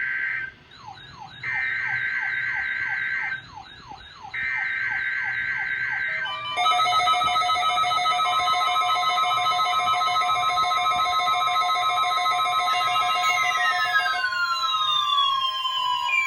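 NOAA Weather Radio SAME header for the Required Weekly Test: three roughly one-second bursts of digital data screech, with a weather alert radio's warbling, siren-like alarm sounding in the gaps between them. About six seconds in, receivers' alarms take over as a louder, steady multi-tone pulsing alert, and near the end falling siren-like sweeps join in.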